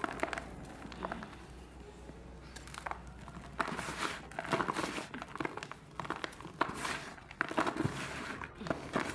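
Lumps of soft mud crumbling apart, with an irregular crumbly crackle that grows busier and louder after about three seconds.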